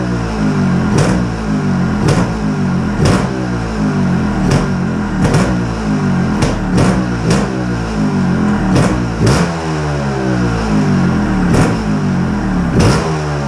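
Trials motorcycle engine running, the throttle blipped over and over so the revs keep rising and falling, with short sharp pops every second or so.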